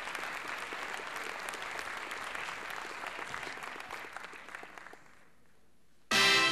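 An audience applauds a dance company's entrance, and the clapping slowly dies away over about five seconds. After a moment's hush, music starts suddenly and loud near the end.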